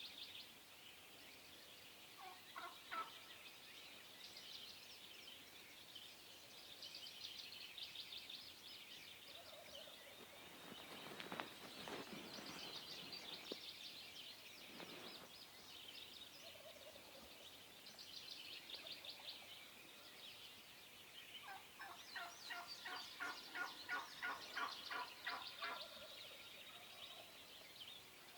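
Wild turkey gobbling: a short gobble about two seconds in and a longer, louder run of gobbling about three-quarters of the way through, with songbirds trilling high and steady throughout.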